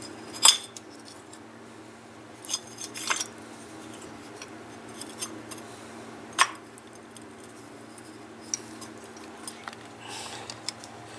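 Metal parts of a Mitsubishi Chariot starter motor being handled and fitted together by hand: scattered sharp clinks and clicks, the loudest about half a second in, over a low steady hum.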